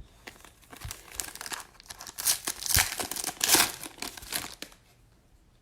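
Plastic wrapper on a trading card box being torn open and crinkled, a run of rustling that is loudest in the middle and stops about a second before the end.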